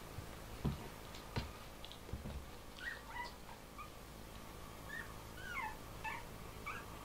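Four-week-old Bichon Frise puppies whimpering and squeaking in short, high-pitched calls, some sliding up or down in pitch, coming thick from about three seconds in. Three dull thumps sound in the first two seconds or so.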